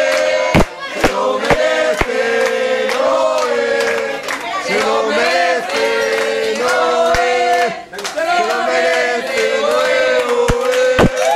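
A group of people singing a song together in sustained, stepping notes, with a few sharp knocks near the start and again near the end.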